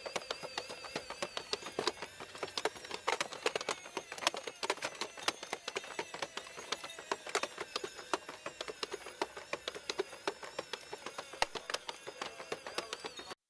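Rapid, irregular light clicking and ticking from a small mechanism, several clicks a second, with a faint high wavering tone behind it.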